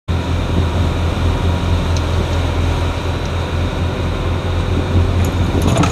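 Sportfishing boat's engine running steadily under way, a deep even drone over the rush of wake water and wind.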